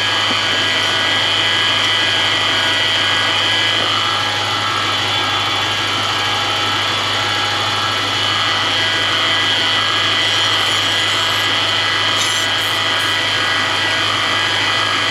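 Toyota 3UZ-FE V8 idling with a steady high-pitched bearing whine from the belt-driven accessory drive, the sign of a worn pulley bearing.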